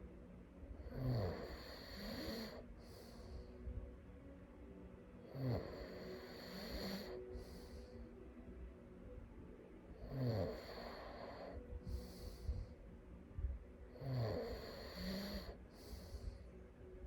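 A person snoring in sleep, four snores at an even rhythm, about one every four and a half seconds. Each snore is a low rattle on the in-breath, followed by a short hissing breath.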